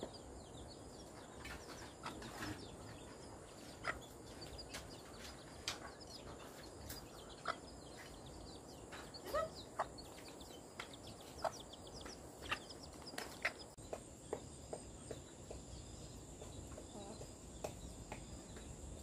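Outdoor ambience of scattered short bird chirps and calls over a steady, high insect hum.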